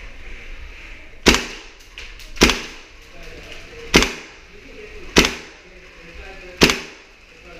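Gas blowback airsoft rifle firing five single shots, each a sharp crack of the bolt cycling, about one every second and a quarter.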